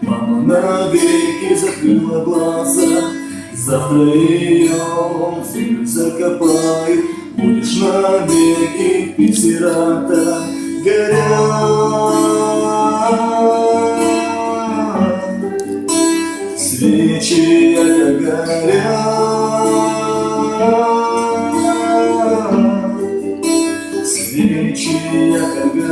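Music: a slow song with plucked guitar accompaniment and a held, gliding melody line over it.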